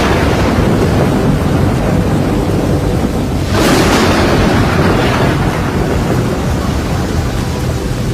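Thunderstorm with steady heavy rain and a sudden loud clap of thunder about three and a half seconds in, rumbling away over the next couple of seconds.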